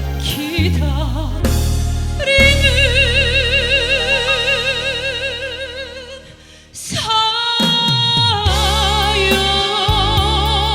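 Female pop-opera voice singing long held notes with wide vibrato over a backing track with bass. One note fades away about six seconds in, and a new held note begins about a second later.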